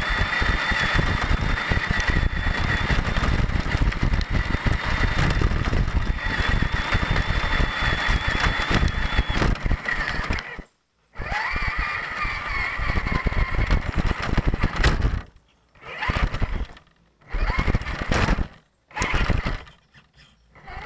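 Axial Deadbolt 1/10-scale RC crawler's electric motor and gearbox whining steadily as it drives over rough grass, with rumble and rattle from the bumpy ground, picked up by a camera mounted on the truck. The sound cuts out briefly about halfway, then the motor runs in short bursts with near-silent pauses between them.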